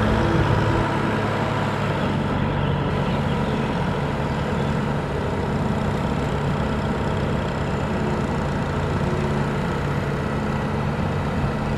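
Kubota DC-105X combine harvester's diesel engine running steadily, with a constant low drone.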